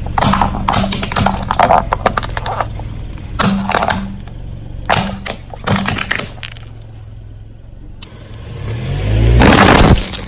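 A car tyre rolling over brittle objects and crushing them: a run of sharp cracks and snaps over the low hum of the car's engine, with a few more cracks a few seconds later. Near the end the engine revs up, the loudest sound of all.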